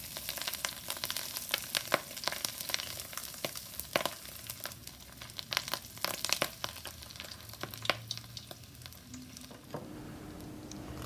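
Hot oil poured over a boiled slab of pork belly in a wire strainer, sizzling with many irregular sharp crackles and pops as the skin blisters and puffs up. The crackling stops near the end.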